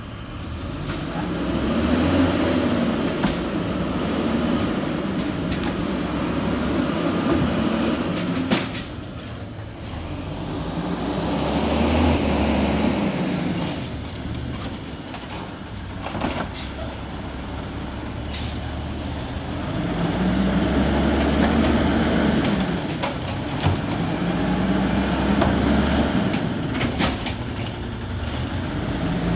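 Automated side-loader garbage truck working: its diesel engine revs up and falls back in repeated cycles as the hydraulic arm lifts and dumps curbside carts, with a few sharp knocks of a cart against the hopper.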